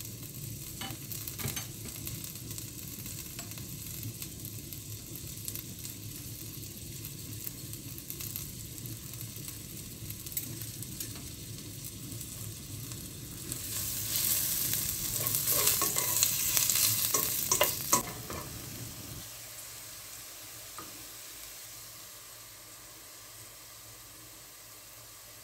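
Sliced onions frying in hot oil in a stainless steel pot: a steady sizzle and crackle, louder and harsher for a few seconds past the middle, then dying down to a faint hiss.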